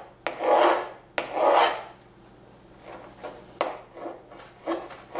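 Chef's knife cutting peeled green chilies on a plastic cutting board: two long scraping slicing strokes in the first two seconds, then a sharp knock of the blade on the board and a few shorter, quieter cuts near the end.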